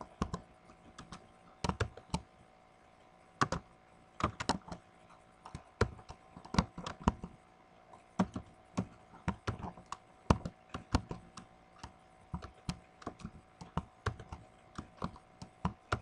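Computer keyboard being typed on: irregular key clicks in short runs, with pauses of about a second at first, then more steady typing from about halfway in.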